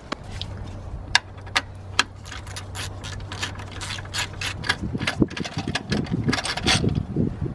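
Socket and ratchet working the 16 mm bolt out of the belt tensioner pulley on a BMW M54 engine: sharp metallic clicks over a low steady hum for the first four seconds or so, then a quick run of clicks and rattles as the bolt spins free.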